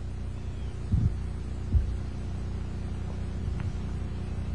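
Steady low hum, with two dull thumps about one and two seconds in.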